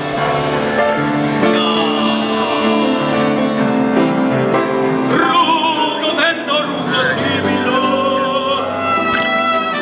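Background music: a song with a singing voice holding long, wavering notes over instrumental backing.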